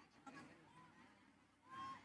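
Near silence: faint, distant voices of a large arena crowd, with one short high-pitched sound near the end.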